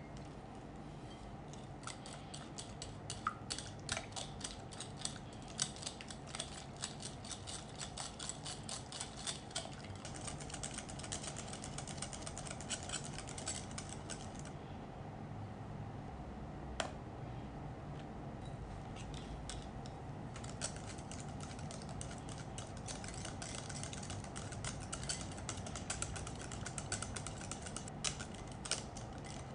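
Wire whisk beating cream cheese and egg in a glass mixing bowl: rapid clicking and ticking as the wires strike the glass, with a pause of a few seconds about halfway through.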